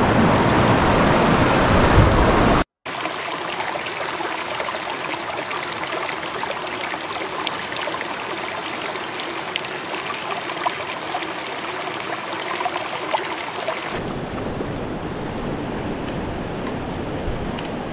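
Rushing water of a fast, rocky mountain trout stream, loud and close at first. After a short break a few seconds in, it carries on quieter with small scattered ticks. About fourteen seconds in it changes to a fuller, deeper rush.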